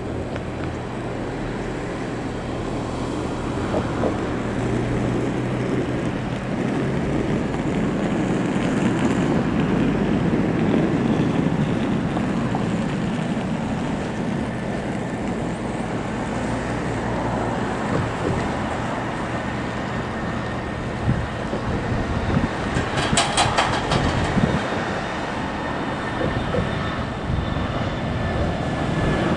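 Airbus A320-family airliner's twin jet engines at takeoff power during the takeoff roll and climb-out: a steady rushing jet noise that swells around ten seconds in. A quick run of clicks comes a little past twenty seconds.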